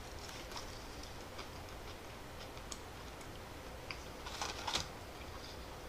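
A man chewing a mouthful of fried chicken sandwich, with scattered faint small clicks and a brief rustle about four and a half seconds in as he handles the sandwich.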